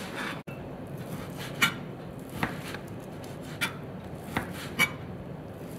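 A chef's knife slicing through boiled beef and knocking down onto a plastic cutting board, about five sharp, unevenly spaced knocks.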